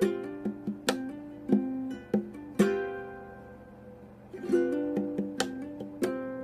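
Ukulele being played: strummed chords and plucked notes, with one chord about two and a half seconds in left to ring out and fade before the playing picks up again.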